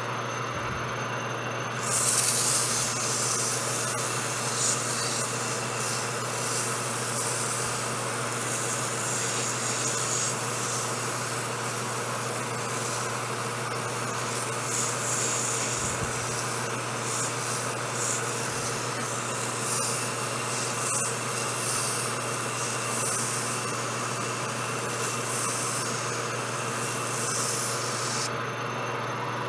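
Metal lathe running with a strip of abrasive cloth held against the spinning steel sleeve, sanding it down the last thousandth or so to size. A steady hiss of the sanding over the lathe's hum starts about two seconds in and stops just before the end.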